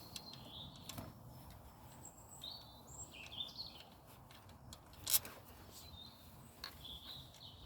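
Small birds chirping on and off in the background, with a few sharp clicks of metal parts being handled; the loudest click comes about five seconds in.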